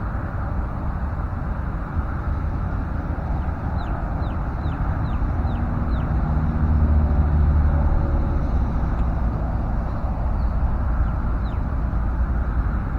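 Steady low rumbling background noise. A bird gives a quick series of short, falling chirps from about three and a half seconds in.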